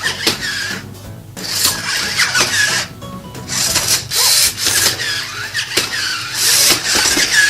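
Small servo motors of a robot puppy toy whirring in four bursts of a second or two as it moves its legs and body, over background music.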